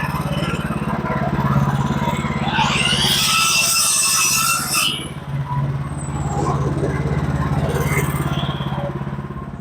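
Sawmill's engine running steadily, with a burst of high hissing and a rising then falling whine from about two and a half seconds in to about five seconds.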